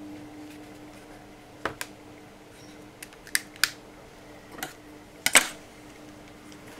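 Small sharp plastic clicks and taps, about eight scattered over several seconds with the loudest about five seconds in, as the circuit board and black plastic housing of a cruise-control switch are handled and fitted together. A faint steady low hum runs underneath.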